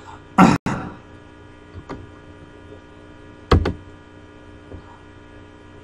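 Steady electrical mains hum on the recording, a set of constant tones, broken by two short sounds: a brief loud burst about half a second in and a sharp thump about three and a half seconds in.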